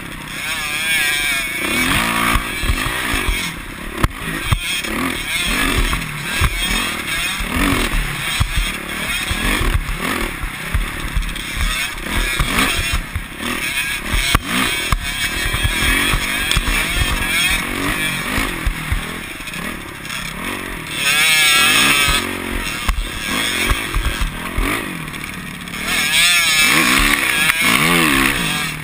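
Dirt bike engine revving up and down as it is ridden along a rough dirt trail, the pitch rising and falling with the throttle. Two louder stretches of harder acceleration come about two-thirds of the way through and again near the end.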